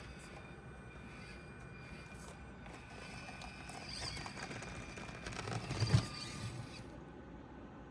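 Axial SCX24 Deadbolt mini crawler's stock brushed motor and gears whining steadily as it crawls, with light clicks. A cluster of knocks and clatter about six seconds in is the loudest moment, the truck's tyres and chassis hitting the course.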